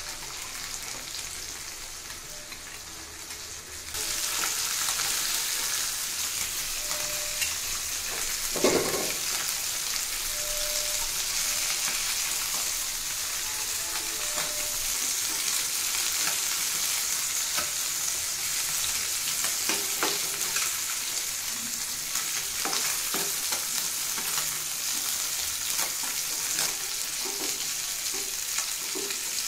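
Small whole fish sizzling in hot oil in a shallow frying pan, with a metal spatula scraping and knocking against the pan as the fish are lifted out. The sizzle grows louder about four seconds in, and a sharp knock about nine seconds in is the loudest sound.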